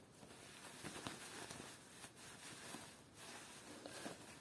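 Faint rustling and soft handling noises of fabric, denim jeans and a printed cloth pouch, being turned over in the hands.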